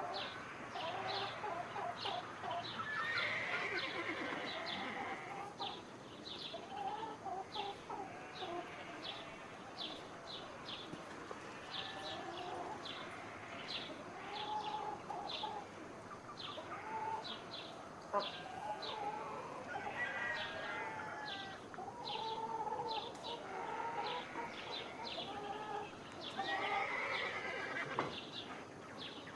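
Barnyard ambience: chickens clucking and other farm-animal calls, over a steady run of short high chirps about twice a second.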